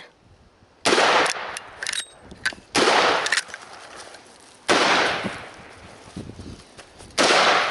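Four rifle shots, roughly two seconds apart, each sharp crack trailing off over about a second.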